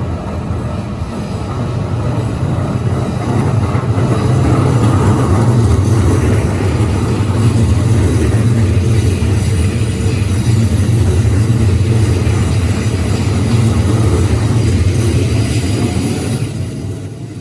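Keikyu Line electric train passing over a level crossing: a steady rumble of wheels on the rails that builds over the first few seconds, holds, and fades near the end.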